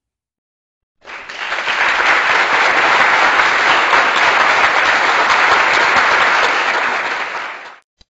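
Crowd applause, added over the pictures as a sound effect. It starts about a second in, holds steady and loud, and fades out near the end.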